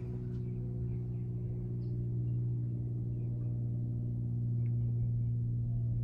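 Steady low machine hum with a few overtones, constant in pitch and level.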